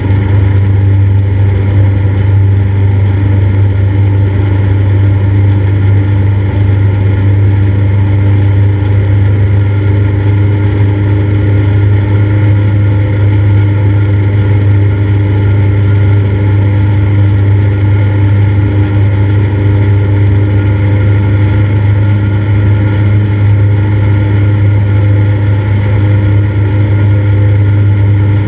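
Cessna 172's piston engine and propeller running steadily in a loud, even drone with a strong low hum.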